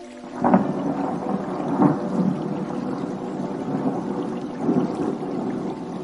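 Thunder: a sudden crack about half a second in, then a long rumble with louder peaks near two seconds and near five seconds, easing toward the end.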